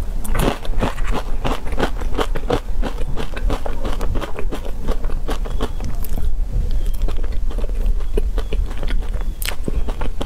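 Close-miked eating sounds: crisp crunching bites and chewing, dense through the first half, then sparser bites into a chocolate-cookie ice cream sandwich, with one sharp crunch near the end.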